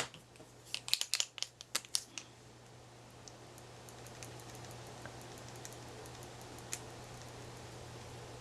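A quick cluster of small clicks and rattles as art supplies are picked up and handled on a desk, then a few faint ticks over a steady low hum.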